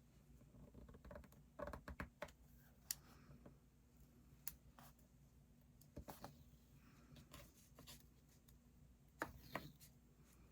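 Near silence with a low steady hum and a few faint, irregular clicks and light taps, grouped in small clusters about two seconds in, around the middle, and near the end.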